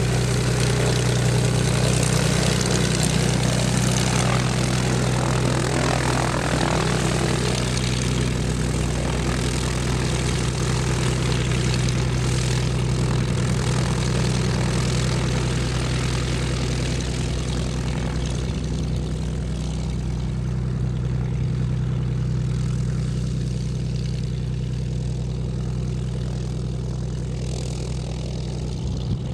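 Light propeller airplane's piston engine running steadily at low power, easing off a little in the last several seconds.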